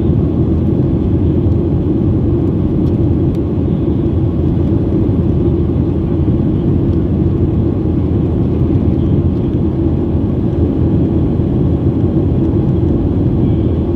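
Jet airliner cabin noise in flight: a steady, low rumble of engines and rushing air heard from inside the passenger cabin.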